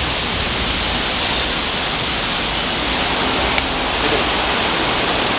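Heavy tropical rain falling steadily, an even rushing hiss with no break.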